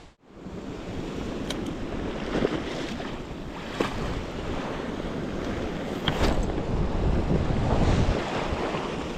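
Surf washing onto a beach, with wind buffeting the microphone. A few short sharp clicks stand out now and then.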